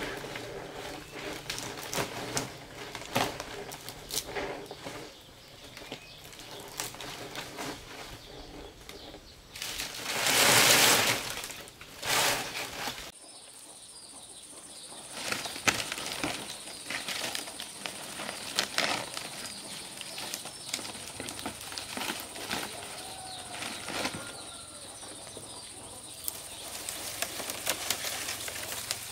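Fan-palm fronds rustling and crackling, with scattered light clicks and knocks, as they are handled and laid onto a bamboo roof frame; a louder rush of rustling lasts about a second and a half near ten seconds in. From about halfway, a steady high-pitched whine sits in the background.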